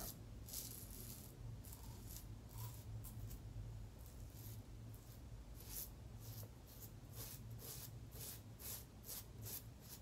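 Safety razor blade scraping across stubble in short, faint strokes, about two or three a second, during a touch-up pass without fresh lather.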